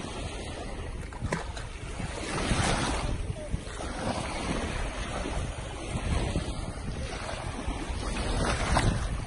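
Small waves washing through the shallows, with wind buffeting the microphone and making a low rumble. The wash swells louder twice, a few seconds in and near the end.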